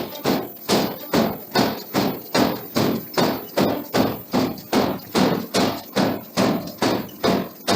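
Forging hammer striking a steel billet in a steady rhythm, a little over two blows a second, each blow ringing briefly.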